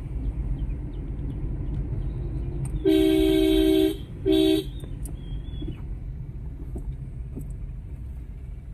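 Car horn sounding twice, one blast of about a second and then a short one, over the steady low rumble of the car driving along the road, heard from inside the cabin.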